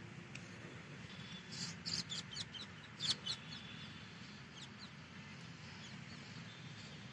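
Small birds chirping in a quick run of short, sharp high calls about one and a half to three and a half seconds in, the loudest near three seconds, over a steady low outdoor hum.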